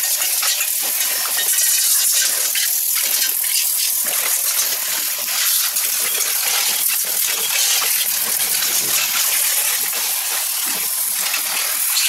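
High-pressure water jet spraying steadily against a scooter's plastic body panels, floorboard and exposed frame.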